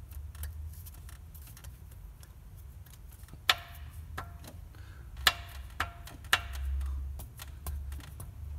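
Piston of an Opel Z16XER 1.6 engine being rocked in its bore, knocking metal-on-metal against the cylinder wall: three or four sharp clicks in the middle, each with a brief ring, among fainter ticks. The knock is a sign of heavy wear in the piston group.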